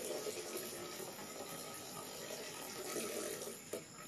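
Water running from a garden hose into a plastic watering can, a steady splashing pour that stops about three and a half seconds in, followed by one short knock.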